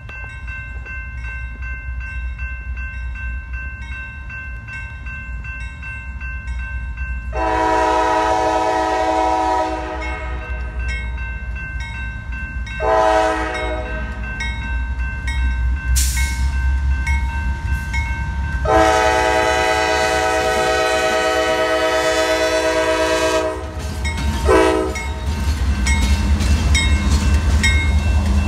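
Diesel freight locomotive sounding its multi-note air horn in four blasts as it approaches: long, short, long, short. Near the end the locomotive's engine and wheels pass close by and get louder.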